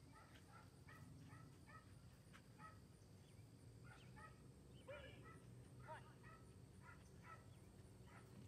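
Faint, scattered yips and barks from a dog working an agility course, with slightly stronger yips about five and six seconds in.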